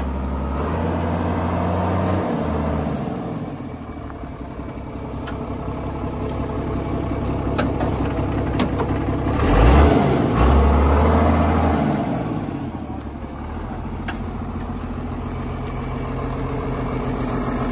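John Deere 1204 tractor's diesel engine running, its speed rising and falling a few times, loudest about ten seconds in.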